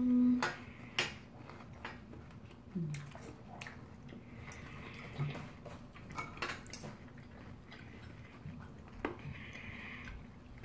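Steel knife and fork clinking and scraping on a ceramic plate as steak is cut, in scattered sharp clicks with a few short scrapes.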